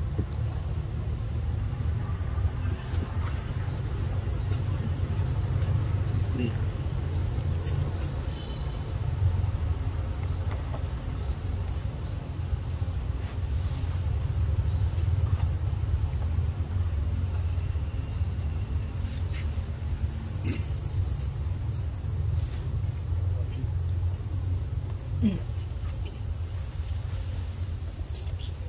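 Forest insects chorusing: a steady high buzz with a short chirp repeating roughly every two-thirds of a second, over a steady low rumble.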